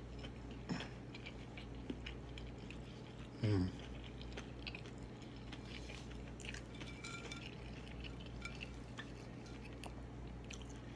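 Close-up chewing of fried deviled eggs, with small wet mouth clicks, and one short voiced sound about three and a half seconds in.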